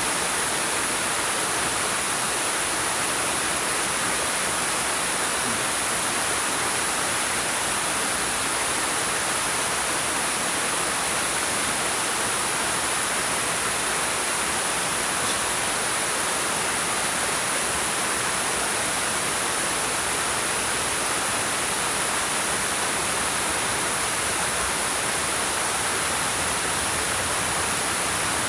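Waterfall spilling over rocks: a steady, unbroken rush of falling water, strongest in the high hiss.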